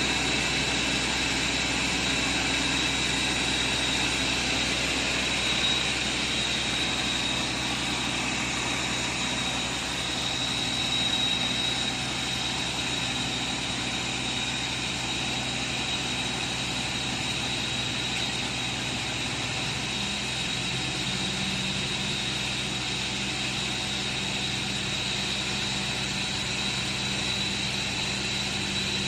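Vacuum blasting equipment running steadily: a constant rush of air with a steady high whine and a low machine hum, and a further low hum coming in about two-thirds of the way through.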